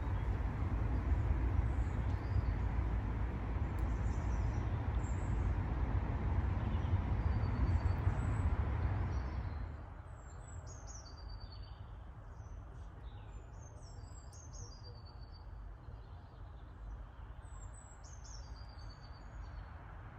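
Small birds chirping and calling over a loud, even rushing noise. About halfway through the rushing drops away suddenly, leaving the chirps clearer over a faint steady hum.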